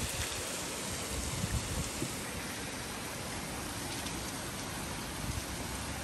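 Heavy rain falling in a steady, even hiss on a street and parked cars.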